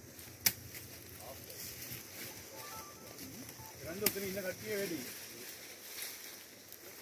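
Faint voices of people talking in the background over a steady hiss, with two sharp clicks, one about half a second in and a louder one about four seconds in.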